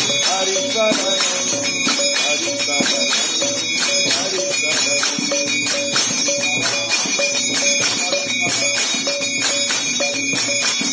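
Devotional kirtan music: jingling hand percussion keeps a fast, even beat under a short melodic phrase repeated over and over, with faint singing voices.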